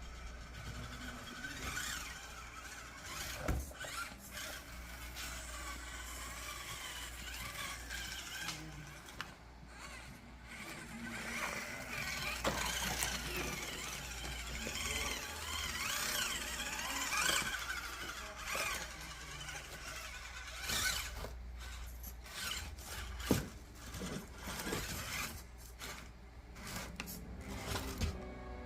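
Hands working on an RC crawler chassis's front suspension links, adjusting their length. Irregular clicks, scrapes and squeaks of small plastic and metal parts.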